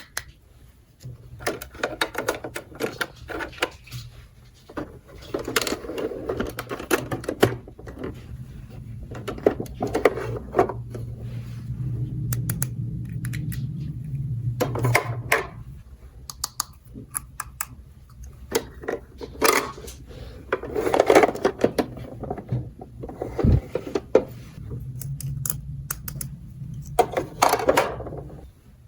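Small hard plastic toy pieces clicking and clattering as they are handled and fitted together, in irregular clusters, over a low steady hum.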